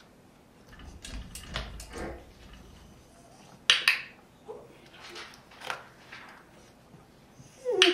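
A handheld dog-training clicker snaps once, about halfway through, with its press and release heard as a quick double click, marking the behaviour during clicker shaping. Soft rustling and small knocks of handling come before it, and another short sharp sound comes near the end.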